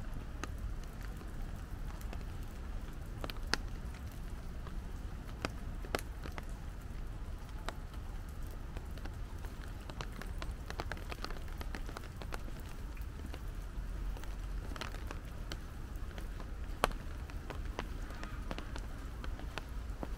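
Rain falling, with scattered single drops ticking sharply close by at irregular intervals over a steady low rumble.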